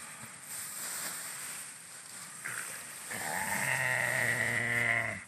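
Pig in a rice paddy giving a long, drawn-out squeal from about three seconds in, after a brief shorter call.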